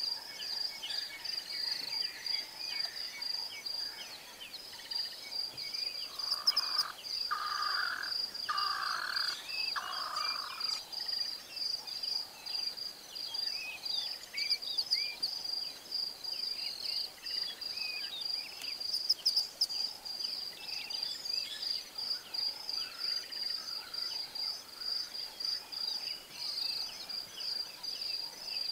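Bushveld ambience: an insect's high trill, steady and fast-pulsing, with scattered bird chirps over it and a call of four notes about seven seconds in.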